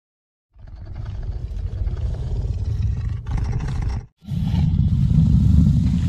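Deep, rumbling growls of an animated Carnotaurus, a film creature sound effect: one growl starts about half a second in and breaks off at about four seconds, then a second, louder growl follows.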